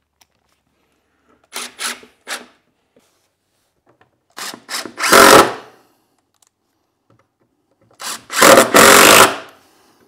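Cordless Milwaukee impact driver driving screws into plywood: a few short blips of the trigger, then two longer runs as the screws are driven home, the second the loudest.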